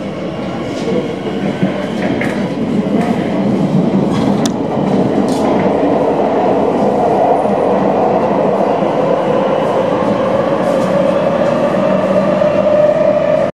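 Madrid metro train pulling out of the station and accelerating into the tunnel, heard from inside the carriage. The running noise grows louder over the first few seconds, with a few sharp clicks from the wheels on the track, then settles into a steady loud rumble with a droning whine. It cuts off abruptly at the end.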